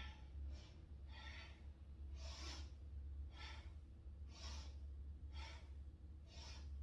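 A woman's quick, rhythmic breathing: short audible inhales and exhales, a stronger breath about every second with a fainter one between, each timed to a seated kundalini spinal twist from side to side.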